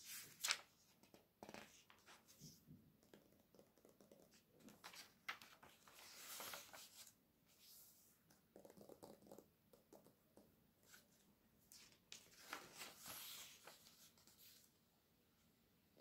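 Glossy catalogue pages handled by fingers with long nails: light taps and scratches on the paper, and two longer rustling swishes as pages are turned, about six and thirteen seconds in.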